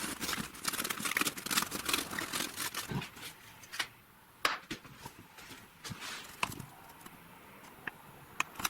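Sheets of paper crinkling and tearing for about the first three seconds, then a few scattered light clicks and taps.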